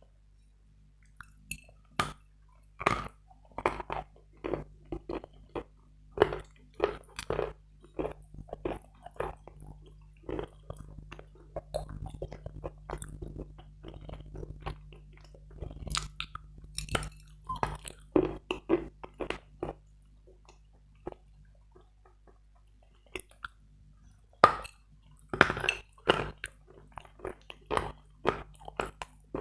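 Hard Bogorodsky chalk being bitten and chewed close to the microphone: a dense, irregular run of loud, sharp, dry-sounding crunches. The crunching breaks off for a few seconds about two-thirds of the way through, then resumes with loud bites.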